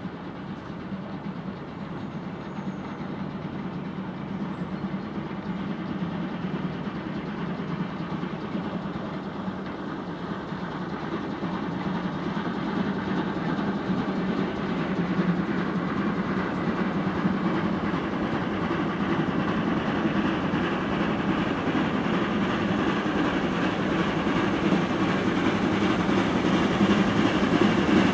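A train approaching on the rails, its running noise growing steadily louder.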